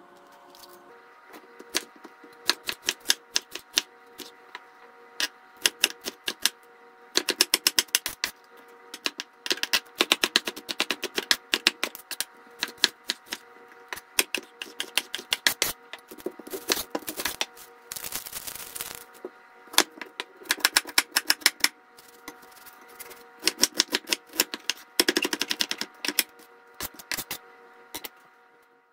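Chef's knife chopping yellow bell pepper and onion on an end-grain wooden cutting board. The blade knocks sharply on the wood in quick runs of rapid strokes, with short pauses between the runs.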